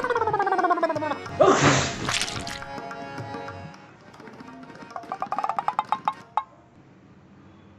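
Edited music and sound effects: a falling pitched glide, then a loud, short, noisy burst about a second and a half in, and later a fast run of rising percussive ticks that stops suddenly.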